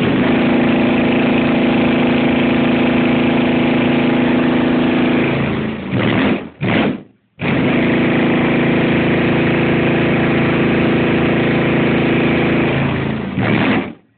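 Selenium Tornado 18-inch car subwoofer playing a steady, very loud low-frequency bass tone. It breaks off for about a second and a half, with a couple of short blasts, around six seconds in, then resumes until near the end.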